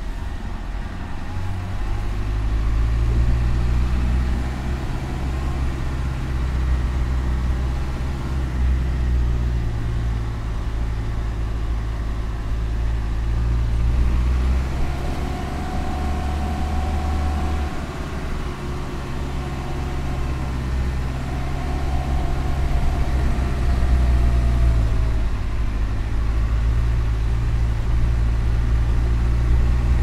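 Game-drive vehicle engine running as it drives along, its low note shifting a few times.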